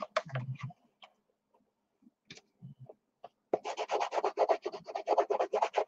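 A few light taps and clicks, then about three and a half seconds in a quick back-and-forth rubbing on paper or card, about eight strokes a second.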